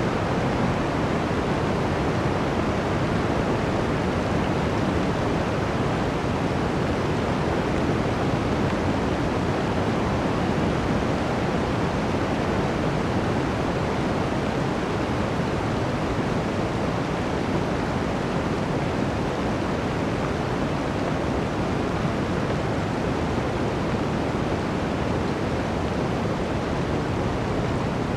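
Blizzard wind blowing through a forest, a steady, dense rushing with no gusts standing out.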